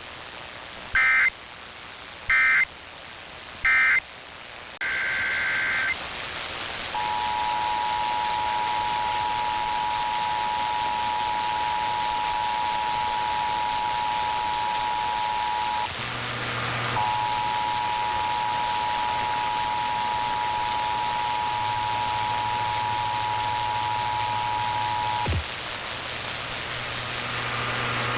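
Emergency Alert System signals received over a hissy radio broadcast: three short data bursts ending the previous test, then a longer data burst, then the two-tone attention signal. The steady dual tone breaks off briefly about halfway, resumes for several more seconds, and then cuts off. A low hum comes in under the second half.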